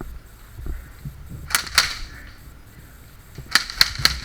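Airsoft gun shots: two sharp cracks about a second and a half in, then a quick string of four about three and a half seconds in.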